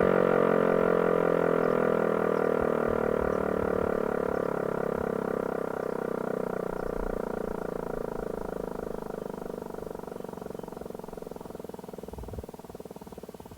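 Landert MSL-3 motor siren winding down: its tone slides slowly lower in pitch and fades steadily as the rotor coasts toward a stop.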